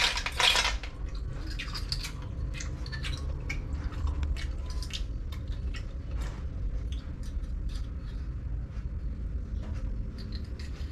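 Snail shells clicking and knocking against each other and a stainless steel bowl as they are handled one by one. A few louder clatters come in the first second, then light scattered clicks, over a low steady hum.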